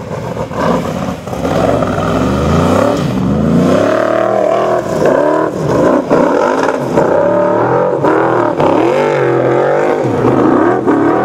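Formula Offroad buggy's engine revving hard under full load as it climbs a steep sand hill, its pitch climbing, then swinging up and down again and again as the spinning wheels fling sand.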